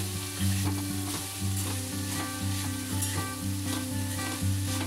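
Rice and chopped vegetables sizzling in a hot kadhai while a spoon stirs and scrapes through them, mixing in the sauces, over background music.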